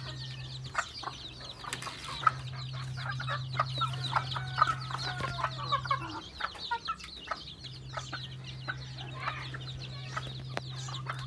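Hens and roosters clucking, with many short high chick peeps over them and a few sharp clicks. A steady low hum runs underneath and drops out briefly a little past halfway.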